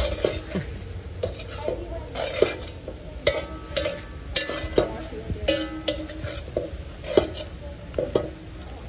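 A long metal spoon stirring dumplings in a large metal cooking pot, knocking and scraping against the pot's sides about twice a second, each knock with a short metallic ring.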